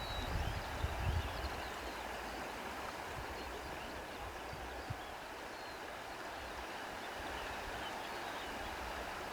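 Outdoor nature ambience: a steady rush like flowing water, with faint high chirps and a few low rumbles in the first second or so.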